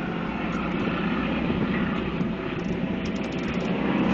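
Propeller aircraft engine droning steadily.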